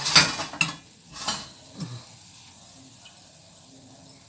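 Wire-mesh skimmer scraping and clinking against a steel frying pan as dough balls are stirred and lifted from the oil: four short scrapes in the first two seconds, the first the loudest. After that there is only a faint steady hiss of the frying oil.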